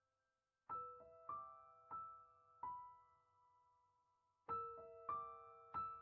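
Quiet piano background music: single notes played slowly, each ringing on and fading, with a short pause near the middle.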